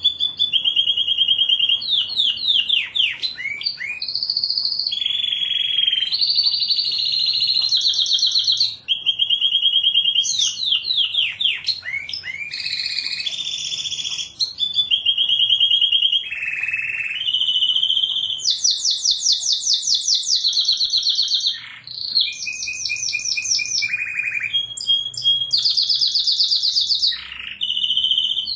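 Domestic canary singing continuously: a chain of fast trills, each a rapidly repeated note held for a second or two before switching to another pitch, with quick falling sweeps between some phrases.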